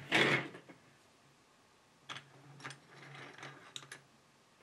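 Hands handling a dynamic microphone's capsule and body in a bench vise: a brief loud scrape at the start, then scattered small clicks and soft rubbing.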